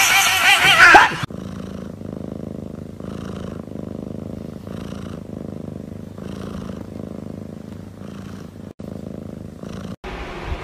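A kitten gives a loud, wavering cry for about the first second. Then a cat purrs steadily, the purr swelling and fading in an even rhythm roughly once a second.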